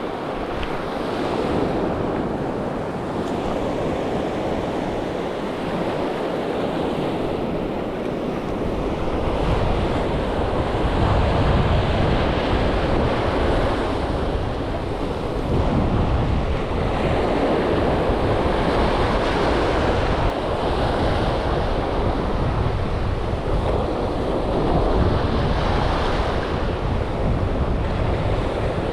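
Sea surf washing onto the shore in slow swells, with wind buffeting the microphone and adding a low rumble from about a third of the way in.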